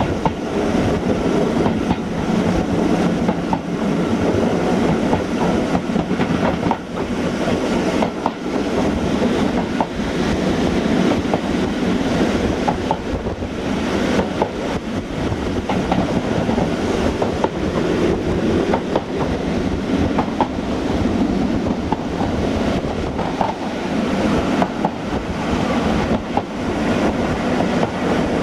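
Railway carriage running along the track, heard from inside the rear cab: a steady wheel-on-rail rumble with scattered short knocks and clatter.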